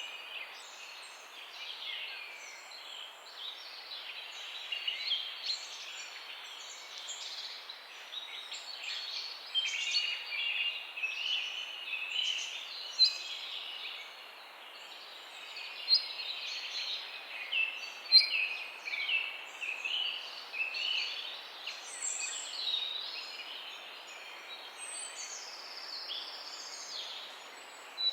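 Several birds chirping and singing together in a dawn chorus: many short chirps and trills, some rising or falling, overlapping throughout over a faint steady hiss.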